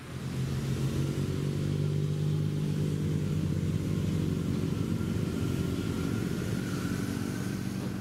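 Motor vehicle engine running steadily close by: a low, even hum with a faint high whine above it. It starts suddenly.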